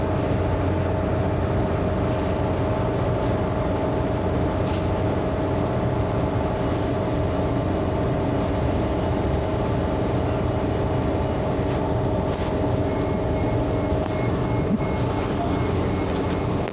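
Inside a moving public transit vehicle: a steady rumble of running and road or track noise, with a constant hum and a few small clicks and rattles.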